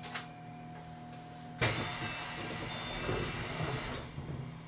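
Compressed air venting from a JR Central 373 series train's air system: a sudden loud hiss about a second and a half in that fades away over about three seconds, as the train readies to leave after its doors close. A steady low electrical hum runs underneath.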